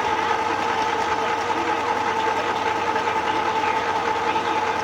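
Sewing machine running steadily, stitching without a break.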